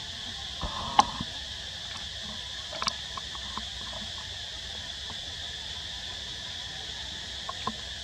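Steady high-pitched insect chorus, with a few sharp clicks, the loudest about a second in, others near three seconds and near the end.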